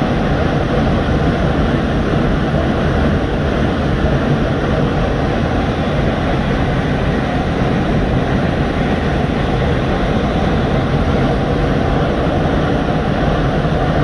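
Waterfall crashing down close by, a loud steady rush of falling water with a deep, heavy low end and no change throughout.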